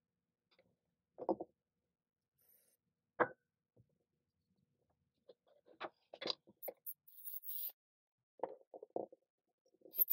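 Adjustable wrench and small knurled caps being handled on a wooden workbench: scattered knocks and clicks as parts are set down and the wrench grips a cap, with a busier run of clicks in the middle.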